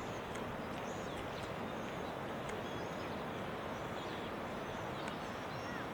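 Steady outdoor background noise with faint, short bird chirps scattered through it, and a couple of small sliding calls near the end.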